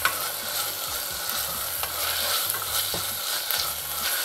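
Onions and ginger-garlic paste sizzling in hot oil in a pressure cooker while being stirred, a steady hiss with a few light knocks.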